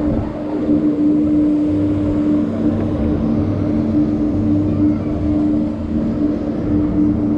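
Rotating swing ride in motion: its drive machinery hums with a steady low drone and a held mid tone, under a rushing noise as the gondola swings.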